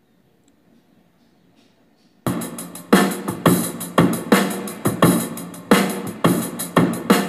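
Near silence for about two seconds, then music with a steady drum-machine beat starts abruptly, about two beats a second, played through an Anker SoundCore 2 Bluetooth speaker.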